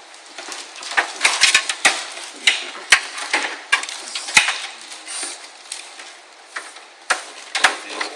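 Irregular clicks and clinks of small metal hardware being handled as screws are tried in a PC case's hard drive mounting, with a busy run of sharp knocks in the first half and a few more near the end.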